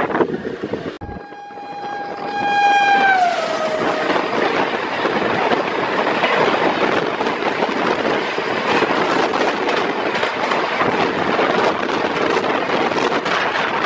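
A train's horn sounds one long steady note about a second in and drops in pitch as it dies away, over the steady rush and clatter of a moving train with wind on the microphone.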